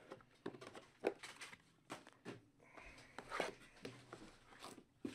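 Trading cards and their packaging being handled: light clicks and rustles, about eight short sharp taps and shuffles spread unevenly through the stretch.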